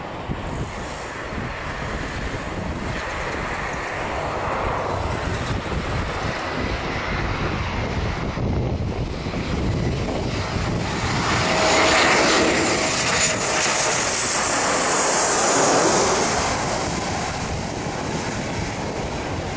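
Twin-engine jet airliner on landing approach, its engine noise building to a peak as it passes close by and then easing off, with a faint high whine over the roar.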